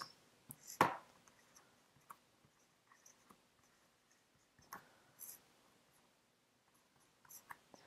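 Faint, scattered taps and short scratches from a marker on a small whiteboard as a score is jotted in the corner, with one sharper click about a second in.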